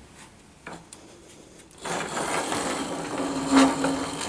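Homemade copy lathe being worked: a rubbing, scraping sound with a steady low hum underneath begins about two seconds in, after a quieter stretch with a single click.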